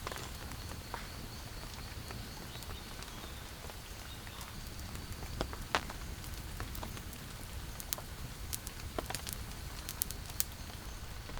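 Rain in the rainforest: a steady wash with scattered drops ticking sharply at irregular intervals over a low rumble, and a faint steady high tone.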